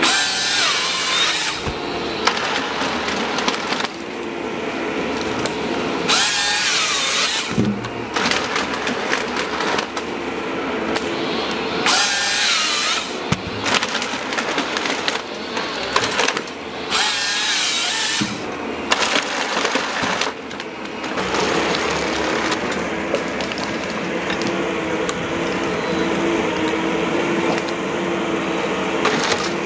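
Vimek 404 T8 small forestry harvester at work. Its engine and hydraulics drone steadily, and the harvester head's saw cuts through stems in short, high-pitched bursts about every six seconds, four times.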